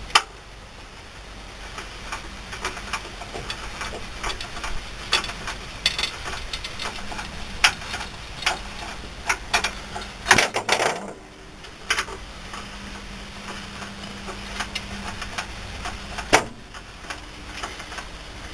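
Irregular metal clicks and clanks as a replacement strut is worked into its mounting on the lowered suspension. A few louder knocks come about ten, twelve and sixteen seconds in.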